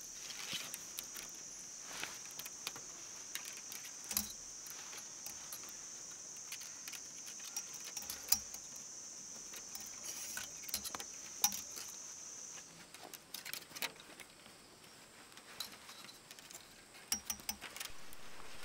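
An insect trilling steadily at a high pitch, stopping suddenly about two-thirds of the way through, over scattered light clicks and taps from handling.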